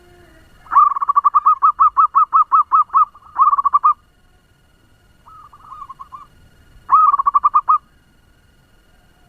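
Zebra dove calling in fast runs of short, quickly repeated cooing notes, about six a second: one long run, then a short one, a fainter one, and another short run near the end.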